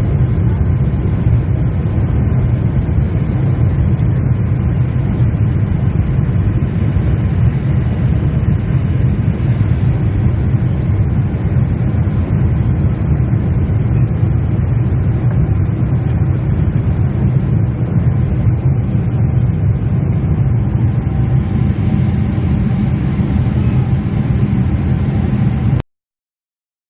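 Steady, loud jet-airliner cabin noise inside a Boeing 747-8: a low, even rumble of engines and airflow, with a little more hiss from about three-quarters of the way through. It cuts off suddenly near the end.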